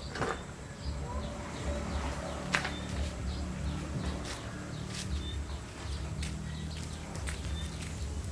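Background ambience: a low steady hum with scattered light clicks and a few faint, short bird chirps.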